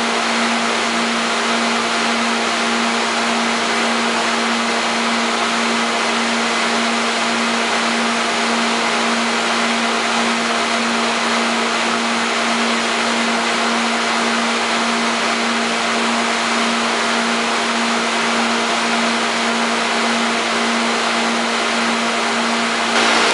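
Steady, unchanging machine hum, a running motor or pump holding one low drone over a hiss.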